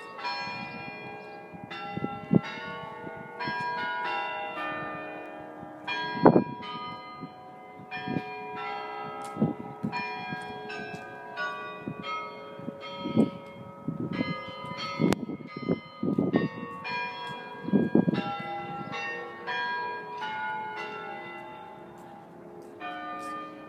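Tower bells ringing a fast run of struck notes at many different pitches, each note ringing on under the next. A few low thumps come in among the notes.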